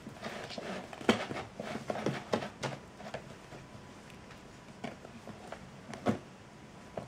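Kittens scuffling and tumbling on a wooden floor and a cushion: irregular knocks and thumps of paws and bodies, a cluster of them in the first few seconds, the loudest about a second in, and another sharp knock about six seconds in.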